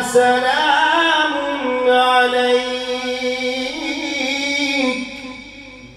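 A man chanting Qur'an recitation in Arabic, holding one long, ornamented note that winds up and down in pitch, then trailing off about five seconds in.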